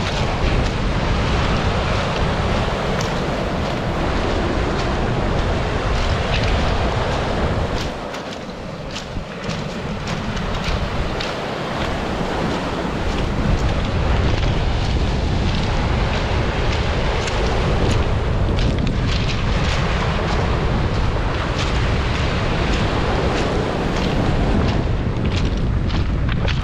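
Strong wind buffeting the microphone with a heavy rumble, over the wash of sea surf; the wind eases briefly about a third of the way in.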